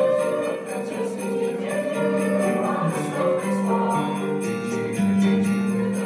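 Mixed choir singing a sustained, moving vocal line, with sleigh bells jingling in a steady rhythm.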